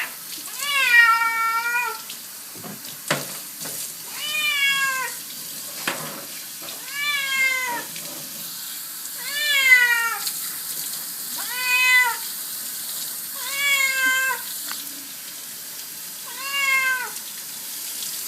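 A cat meowing over and over, seven long meows about every two and a half seconds, each rising and then falling in pitch: a cat protesting at being bathed.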